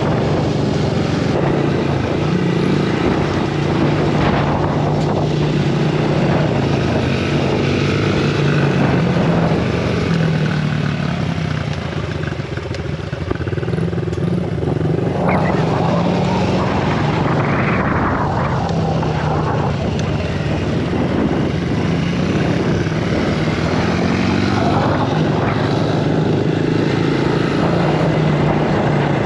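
Honda CRF50F mini dirt bike's small four-stroke single engine being ridden, its pitch rising and falling as the throttle is worked, with sharper revs around the middle. It runs smoothly, now that a new petcock has cured its poor running.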